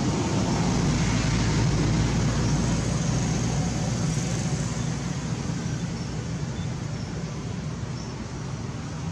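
Road traffic noise: a steady rumble of a passing vehicle that swells early on and slowly fades.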